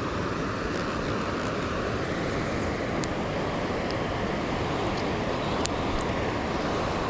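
Steady rush of fast-flowing floodwater, with a few faint clicks.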